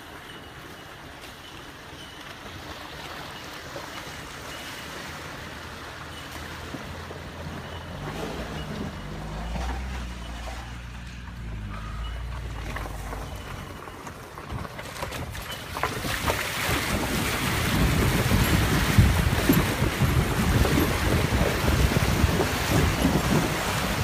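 A car engine running low with a hum that shifts in pitch, about eight to thirteen seconds in. From about sixteen seconds a loud rushing of creek water with wind buffeting the microphone takes over.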